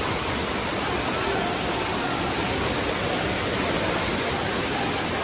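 Steady rush of water, an even noise with no distinct events.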